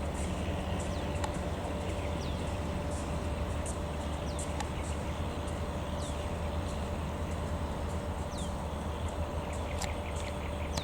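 Diesel locomotive idling at a standstill: a steady low hum with a steady mid-pitched tone over it. Short, high, falling chirps from birds come every second or two.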